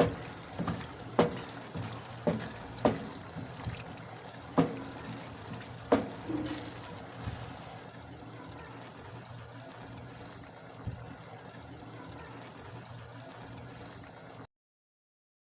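Kitchen cooking sounds: several sharp knocks and clinks of cookware in the first six seconds over a steady faint hiss with some liquid sounds. The sound cuts off suddenly near the end.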